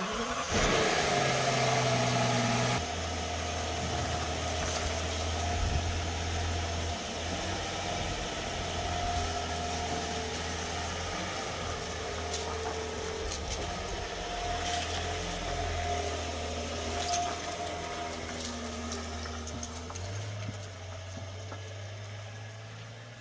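Rolls-Royce engine idling steadily, its pitch dropping a few seconds in and rising again near the end.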